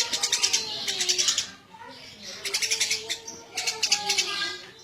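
Eurasian tree sparrow chirping busily in fast runs of sharp chirps, in bursts with a pause of about a second partway through.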